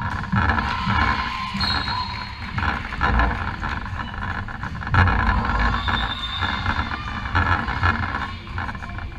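Indoor volleyball play on a wooden court in a large echoing hall: the ball being struck and thudding, with a heavy thud about five seconds in, brief high shoe squeaks on the floor, and players' voices.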